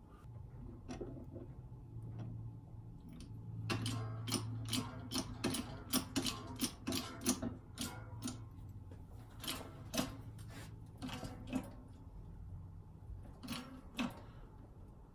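Benchtop hydraulic shop press being hand-pumped, with a run of sharp metallic clicks and creaks from the pump handle and frame as the ram loads up against a seized steering-shaft pin. The clicks come thickest a few seconds in and thin out toward the end, over a steady low hum.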